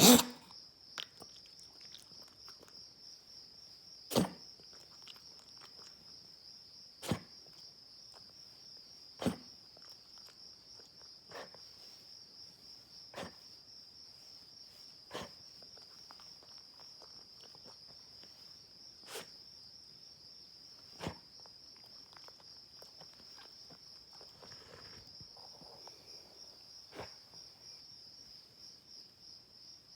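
Short single coughs repeated about every two seconds, loudest at the start and about four seconds in, then fainter, over a steady high chirring of night insects.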